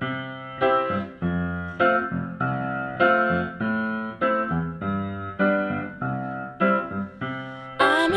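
Music: piano chords struck a little under twice a second, each ringing and fading before the next. Near the end a singing voice and fuller backing come in.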